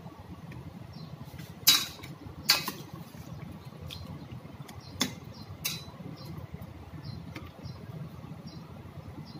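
Metal ladle clinking against the side of a stainless steel soup pot while stirring: two quick pairs of sharp clinks, each with a short ring, over a steady low background noise.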